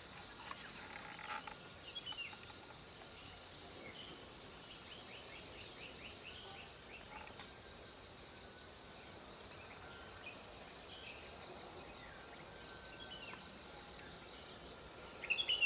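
Outdoor rural ambience: a steady high insect drone with scattered faint bird chirps.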